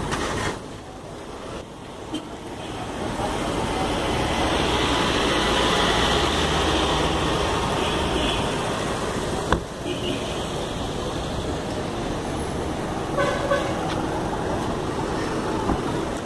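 Road traffic noise, with a motor vehicle passing close: it swells over several seconds and then eases off. A single sharp knock comes a little past halfway.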